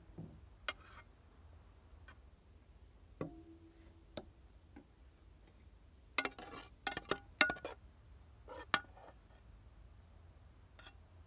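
Metal spoon clinking and scraping against a steel cooking pot and serving bowls as noodles are spooned out: scattered sharp taps, one ringing briefly, with a busy run of clinks around six to eight seconds in.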